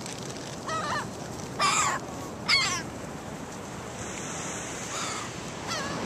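Gulls calling, about five short harsh cries, the loudest about two and a half seconds in, over the steady hiss of surf.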